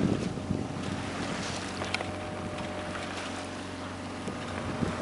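Sailboat under way: wind on the microphone and water washing past the hull, over a steady low hum.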